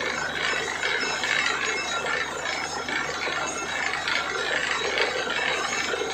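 Truck-mounted borewell drilling rig running: a steady mechanical noise over a low, even hum.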